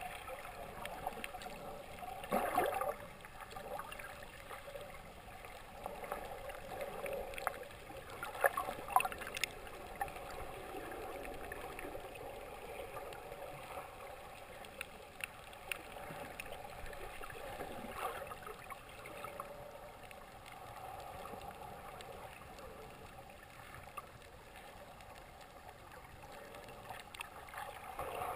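Muffled underwater sea ambience heard through a submerged camera: a steady wash of moving water with a few short clicks, the loudest about two and a half seconds and nine seconds in.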